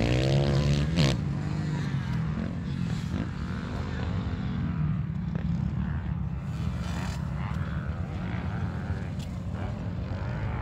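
Dirt bike engines running, with one revving up in pitch near the start and a steady engine drone after it.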